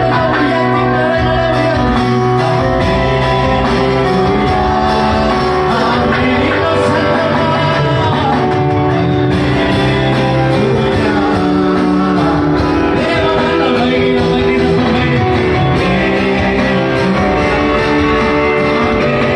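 Live worship music: a man singing a Tamil worship song into a microphone, backed by an electronic keyboard and an electronic drum pad played with sticks.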